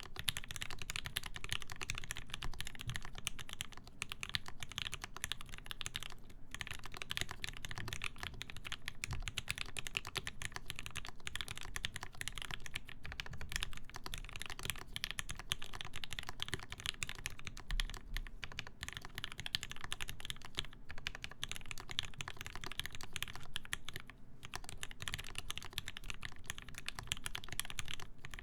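Continuous typing on a mechanical keyboard with lubed Gateron Ink linear switches, a full brass plate, GMK keycaps and foam inside the case. The keystrokes come close together, with brief pauses about six seconds in and about three quarters of the way through.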